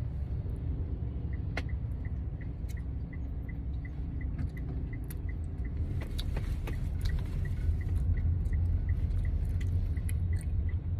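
Low, steady rumble inside a moving car's cabin, growing a little louder about halfway through, with a regular high tick about three times a second starting about a second in and a few sharp small clicks.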